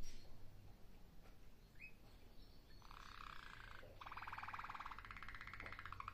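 Malinois (Waterslager) song canary singing: a few soft chirps, then about three seconds in a fast rolling trill that breaks off briefly a second later and starts again.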